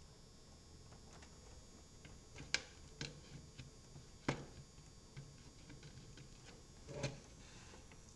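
Scattered sharp clicks and small knocks of a plastic power-supply cable connector being handled and pushed onto a motherboard header, the sharpest about two and a half and four seconds in and another near seven seconds.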